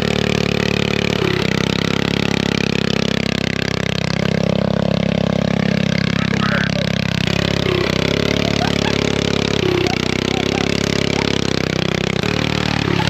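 Engine running steadily under varying load, its pitch dipping briefly and settling again several times.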